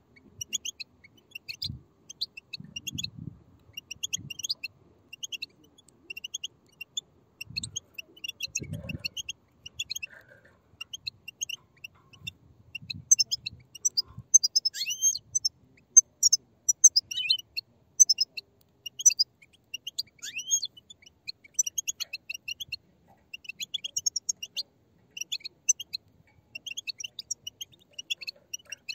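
A group of European goldfinch chicks chirping together in rapid, overlapping high begging notes, with some louder down-slurred calls in the middle.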